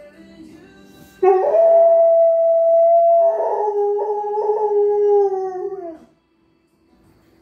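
German Shorthaired Pointer howling one long held note, starting about a second in and lasting nearly five seconds, with its pitch sagging just before it stops. Faint music plays underneath.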